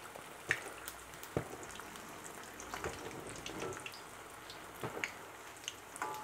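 Battered tempura vegetables deep-frying in hot oil in a wok: a steady, faint sizzle with scattered crackles and clicks.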